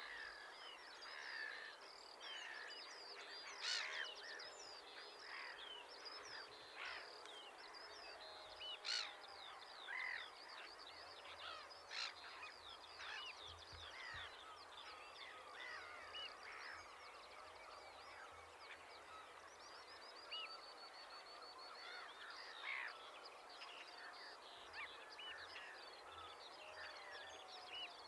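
Faint chorus of wild birds: many short chirps and whistled calls overlapping, with a few sharper calls standing out, and a fast trill of repeated high notes about twenty seconds in.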